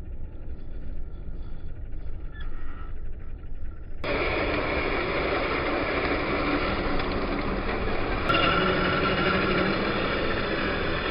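Motor and gear whine of a 1/10-scale RC crawler with a Fusion SE 1800kv motor driving, over a dense running noise. A quieter low rumble comes first, and the louder driving sound starts abruptly about four seconds in, changing in tone about eight seconds in.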